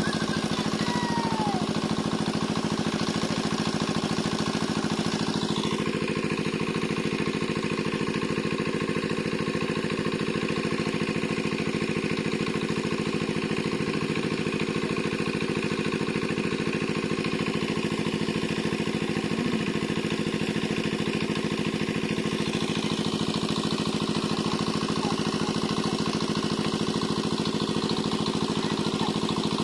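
A small engine running steadily at an even speed, without revving. The higher part of its sound changes about six seconds in and again later on.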